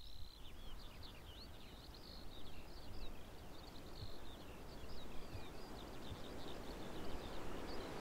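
Small birds chirping and twittering in quick, high-pitched runs over a steady faint outdoor hiss.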